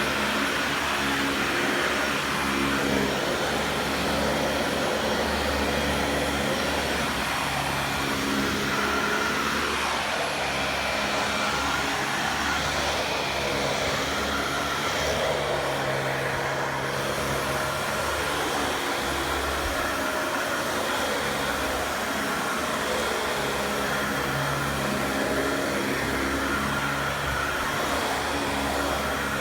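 Dyson DC40 upright vacuum cleaner running steadily, its low motor hum shifting in pitch now and then.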